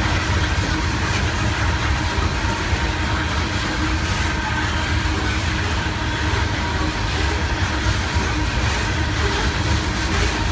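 Freight train hopper cars rolling past: a steady, continuous rumble of steel wheels on rail.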